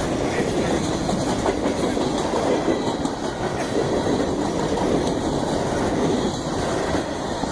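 Freight cars of a CSX train rolling past with a steady rumble and clatter of wheels on the rails.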